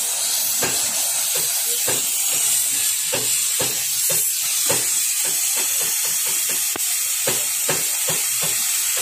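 Gas torch flame hissing steadily while melting lead onto a battery terminal post, with irregular sharp crackles, several a second.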